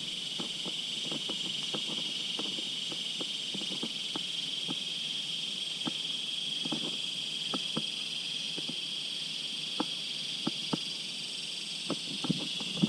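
A steady, high-pitched buzz of insects in the riverside trees, with scattered light clicks and taps throughout.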